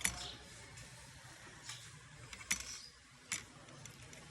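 Four sharp, light clicks of small repair tools tapping on a phone circuit board while solder is cleared from the charging-port holes, over a faint steady hiss.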